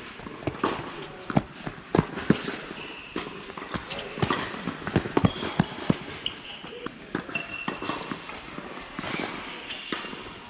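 Tennis balls struck by racquets and bouncing on an indoor hard court: a run of sharp, irregular knocks, with a few short, high sneaker squeaks and footsteps.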